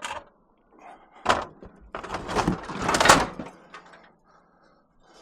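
Scrap metal being loaded onto a truck: a short knock, a heavy clank about a second in, then a second or so of clattering and scraping metal.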